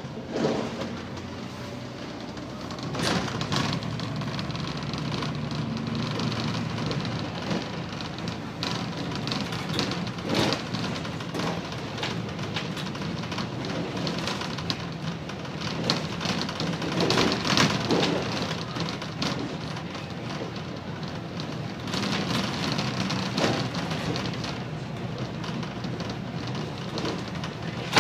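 Volvo B7TL double-decker bus heard from its upper deck while on the move: the diesel engine runs with a steady low drone and the tyres hiss on a wet road. Interior panels rattle and knock now and then.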